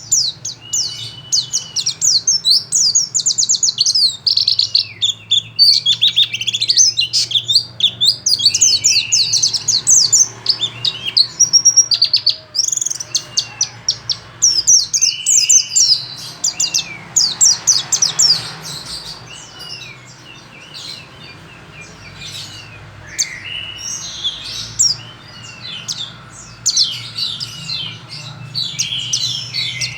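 Pleci (white-eye) singing a fast, continuous high twittering song of rapid chirps broken by short clear whistled slurs. It thins out somewhat in the second half.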